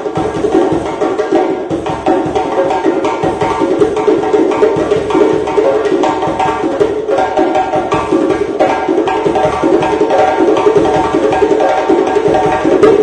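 Two djembes played with bare hands in a fast, steady interlocking rhythm, one drum fitted with metal jingle plates.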